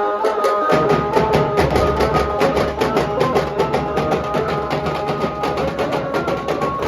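Nashik dhol drumming: the deep drums come in about a second in and play a fast, dense rhythm of sharp strokes, with steady melodic notes held above it.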